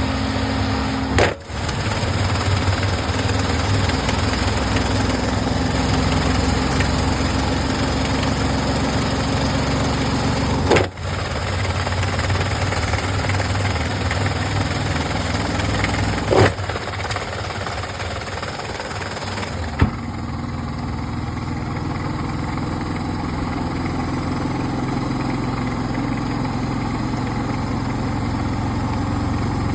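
Samsung washing machine running with a load of wet towels: a steady motor hum and drum whir. A few sharp, brief breaks interrupt it, and after about twenty seconds the sound turns duller.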